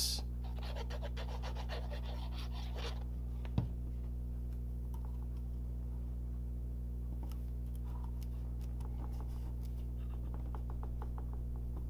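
Steady low hum under faint rustling and rubbing of cardstock as a paper sun is pressed down onto a card by hand, with one soft knock about three and a half seconds in.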